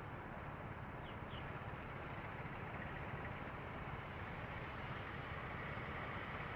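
Steady traffic noise of scooter engines idling at a stop. Another scooter pulls up alongside in the second half, and its engine grows a little louder. Two short high chirps come about a second in.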